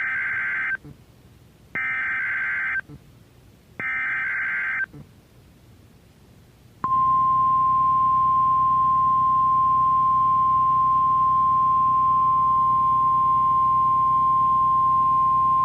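NOAA Weather Radio SAME (Specific Area Message Encoding) header: three one-second bursts of rapid digital data tones about a second apart, then, after a two-second pause, the steady 1050 Hz warning alarm tone held for about nine seconds, the signal that switches on weather alert receivers.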